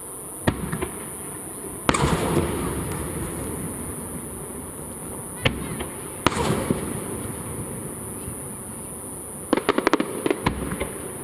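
Aerial fireworks shells bursting. Single bangs come about half a second and two seconds in, then two more around five and a half and six seconds, each trailing a rumbling echo. A quick run of crackling pops follows near the end.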